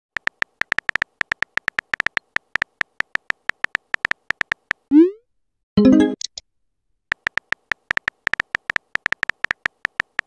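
Texting-app sound effects: rapid keyboard typing clicks, about six a second, then a short rising swoosh as the message is sent and a brief alert chime about a second later. The typing clicks start again near the end.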